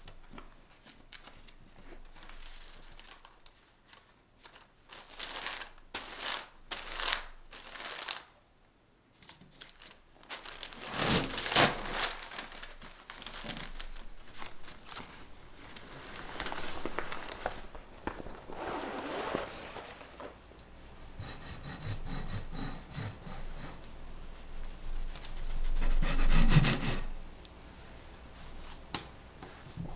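Baking parchment paper rustling and crinkling in irregular bursts as it is handled and peeled off the underside of a baked sponge cake sheet. There are louder crinkles about a third of the way in and again near the end.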